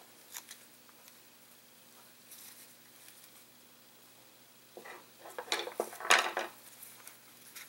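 Metal hand tools clinking and knocking against a wooden workbench as they are picked up and handled, in a short cluster of sharp clicks about five seconds in, loudest near the six-second mark.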